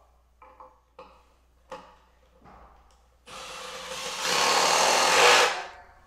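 Cordless drill driving a 4-inch GRK screw into a northern white cedar log, a rasping whirr that builds for about two and a half seconds and stops. It is preceded by a few light handling clicks and knocks.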